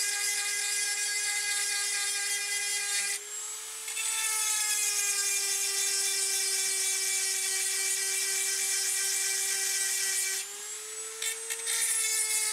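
Dremel rotary tool with a small grinding stone sharpening chainsaw chain cutters: a steady high motor whine with a gritty grinding hiss as the stone takes metal off the teeth. Twice, about three seconds in and again near the end, the grinding drops away and the whine rises slightly as the stone comes off a tooth, then it bears down again.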